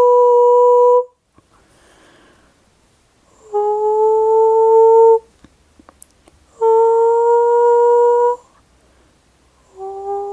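A woman's voice toning: long, steady held notes, each one sung on a single breath and rising slightly in pitch. The first note stops about a second in; after a short quiet gap two more notes follow, and a fourth begins near the end.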